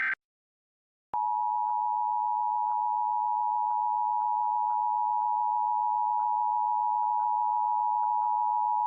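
The tail of an EAS SAME header's digital data burst ends just at the start. After about a second of silence, the Emergency Alert System two-tone attention signal (853 Hz and 960 Hz sounded together) comes on and holds steady. It is the signal that an emergency alert message follows, here for a statewide Required Monthly Test.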